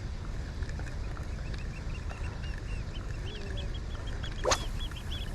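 A fast run of short, high bird calls repeating several times a second, over a steady low rumble of wind and water. About four and a half seconds in, one brief sharp sweep rising in pitch stands out above the rest.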